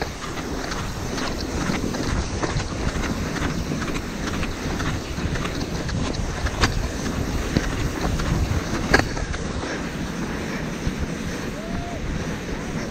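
Snow scraping and hissing under a person sliding down a snow slope on their backside, with wind buffeting the microphone. Two sharp clicks stand out near the middle.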